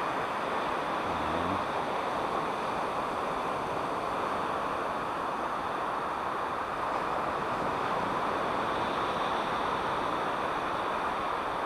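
Steady wash of ocean surf mixed with wind buffeting the microphone.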